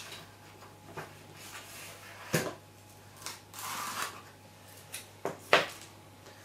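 Pieces of card being handled on a craft table while being taped: several sharp taps and clicks, the loudest near the end, with a brief rustle of card and tape in the middle.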